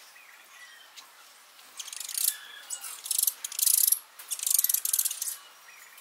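High-pitched, rapidly pulsing insect buzz in several bursts over about three seconds, starting about two seconds in. Faint bird chirps sound under it.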